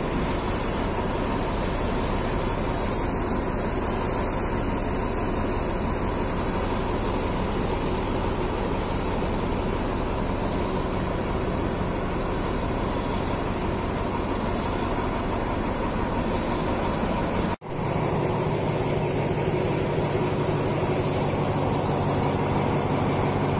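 Diesel-electric locomotive idling with a steady, even hum. About three-quarters of the way through it cuts off abruptly to the running rumble of the train under way, heard from on board.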